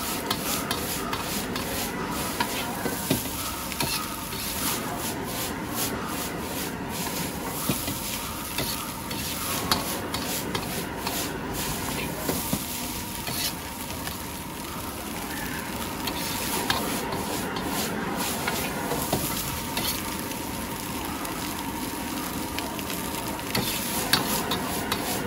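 Noodles sizzling in a wok over a high flame while a steel ladle stirs and scrapes them, with frequent clinks of the ladle against the wok.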